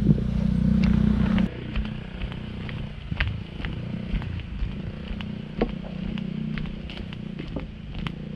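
Waterfall's rushing water: a steady low rumble with scattered sharp clicks and splashes over it. The level drops suddenly about a second and a half in.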